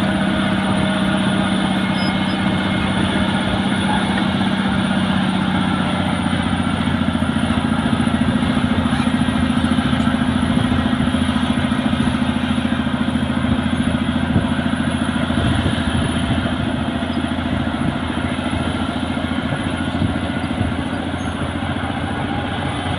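Caterpillar D6R bulldozer's diesel engine running steadily, its pitch rising a little about six seconds in and holding there.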